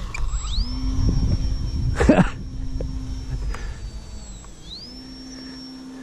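Electric motor and propeller of an E-flite Valiant RC plane whining up to a steady high pitch as the throttle opens for a touch-and-go. The whine eases off around four seconds in, then climbs back up. Wind buffets the microphone with a low rumble that fades after about four seconds, and a short loud thump comes about two seconds in.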